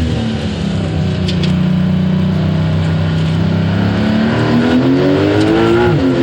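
Porsche 911 Turbo S (992.2) twin-turbo flat-six with a turboback performance exhaust, running at steady revs and then pulling up through the revs for about two seconds. Near the end the pitch drops sharply and picks up again, as at a gear change.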